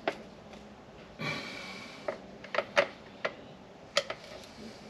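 Several sharp clicks and taps, with a short scraping rasp about a second in, as tools and ignition parts are handled.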